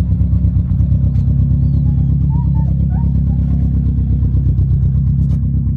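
Subaru flat-four engine running at a steady speed, a low even throb.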